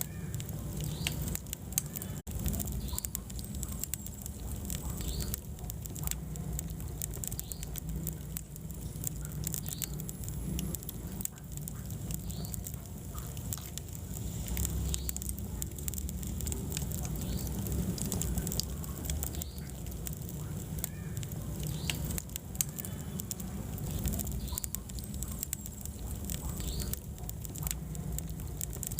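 Wood fire burning in a fireplace: a steady low rumble of flames with frequent small crackles and pops throughout.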